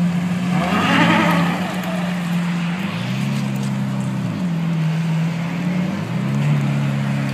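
A supercar's engine running with a steady drone, revved up and held about three seconds in and again about six seconds in, each time dropping back after a second or two. There is a brief noisy burst about a second in.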